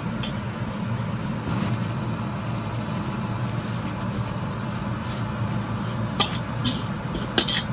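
Chili flakes, sesame seeds and cumin frying in hot oil in a wok as they are stirred, a steady frying noise over a low rumble, with a few sharp clicks of the metal spatula against the wok near the end.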